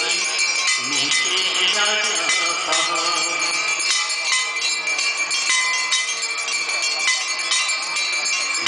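Many brass hand bells of a Hindu aarti ring rapidly and without pause, a dense high jangle, with voices chanting underneath.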